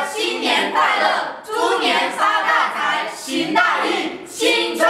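A group of men and women calling out a New Year greeting together in unison, in short phrases.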